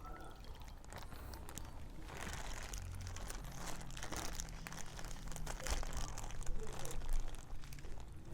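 Thin plastic food packaging being crinkled and handled in irregular bursts, busiest in the second half, over a faint steady low hum.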